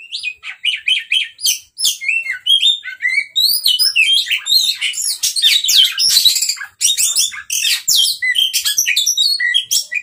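Oriental magpie-robin singing a loud, rapid run of varied whistles and chirps that starts abruptly.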